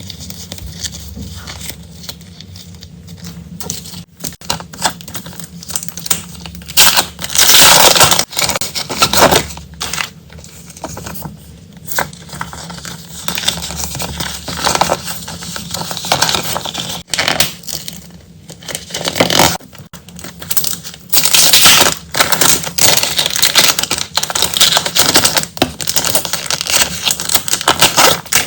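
Packaging being crinkled, torn and rustled by hand as stationery is unwrapped, in irregular bursts that grow louder about seven seconds in and again over the last several seconds.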